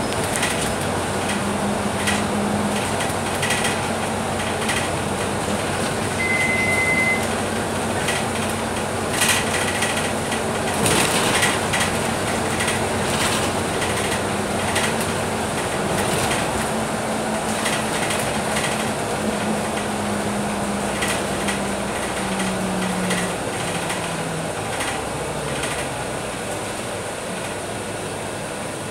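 Scania K310UB bus in motion, heard from inside the cabin: the steady drone of its five-cylinder diesel engine and tyre noise, with interior panels rattling. Near the end the engine note falls in pitch and the sound eases as the bus slows. A short high beep sounds about six seconds in.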